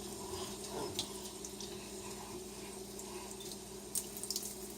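Kitchen tap running steadily into the sink as a water glass is filled, with a few small ticks and splashes about a second in and again near the end.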